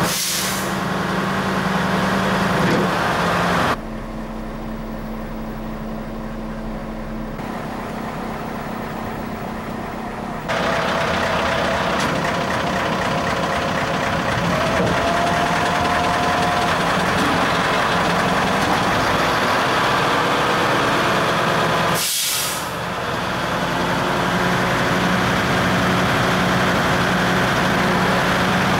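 Snowplow truck's diesel engine idling steadily while its plow blades are worked, with two short air hisses, one right at the start and one about 22 seconds in. The engine is quieter for a few seconds between about 4 and 10 seconds in.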